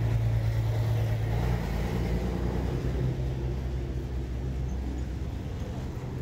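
A motor vehicle's engine running with a steady low hum, in street traffic noise.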